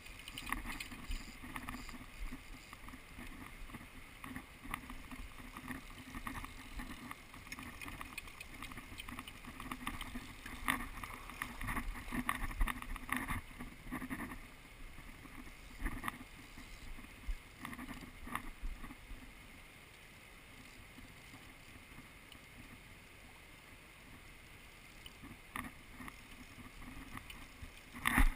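A fishing reel is wound in, with clicks and handling rustle over the steady rush of river water. It grows quieter about two-thirds of the way through. A sudden loud burst of handling noise comes near the end as the rod is swung.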